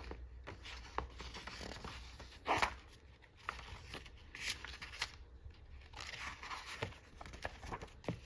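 Magazine pages being handled and turned: faint paper rustles with small taps and clicks.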